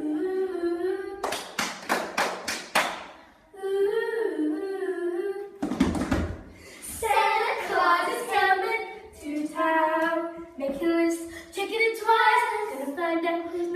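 Young girls singing, with a quick run of about six claps a little over a second in.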